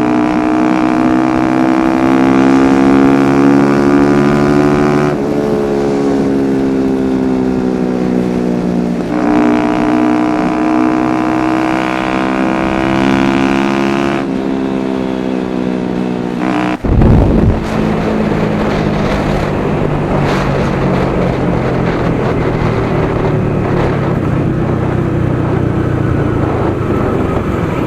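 Honda CBR250R's single-cylinder engine through an Akrapovic exhaust, pulling up through the gears: the note climbs steadily and drops back at each of three upshifts. A little over halfway there is a sudden thump, after which the engine note sinks under heavy wind noise.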